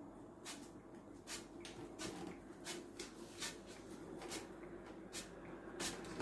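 Cooking-oil spray greasing an empty cake tin: about a dozen short, faint spritzes, roughly two a second.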